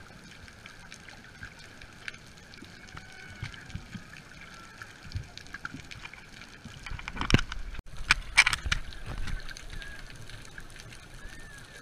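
Underwater sound picked up by a camera beneath the surface: a steady low hiss and hum with faint scattered clicks. A loud burst of water sloshing and splashing about seven seconds in lasts roughly two seconds.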